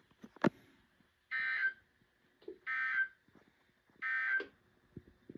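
Three short buzzing data bursts from a weather radio's speaker, about 1.3 seconds apart: the EAS/SAME end-of-message digital code that closes the weekly test broadcast. A sharp click comes just before the first burst.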